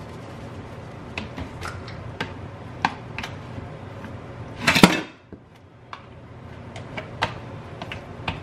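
Kitchen utensils and dishes clinking and knocking during cooking, scattered light taps with one louder clatter about five seconds in, over a steady low hum.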